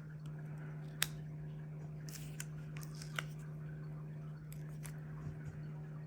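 Quiet desk-crafting handling sounds from stickers and paper: a few small sharp clicks, the sharpest about a second in, over a steady low hum.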